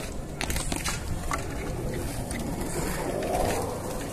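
A BMX bike rolling over concrete, a steady low rumble with a few light clicks and a swell near the end as it rides up onto a box.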